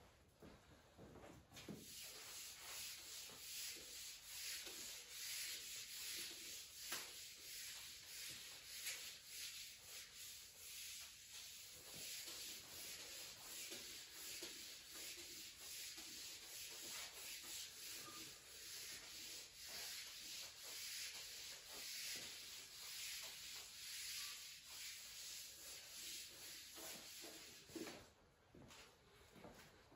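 Felt whiteboard eraser wiping across the board in quick back-and-forth strokes, a dry rubbing hiss as the writing is cleared. It starts about a second and a half in and stops near the end.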